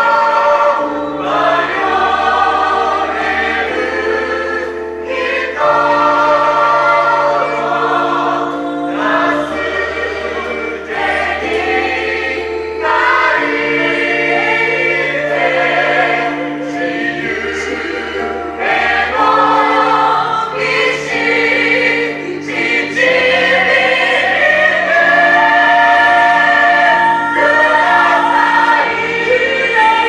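Gospel choir singing together in full voice over an accompaniment of sustained bass notes that change every few seconds.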